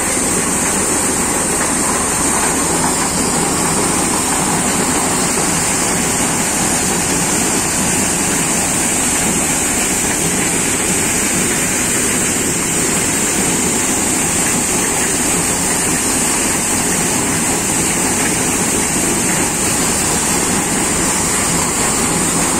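Tractor-driven maize thresher running steadily: a loud, even mechanical rush with a constant high hiss, and no change in speed.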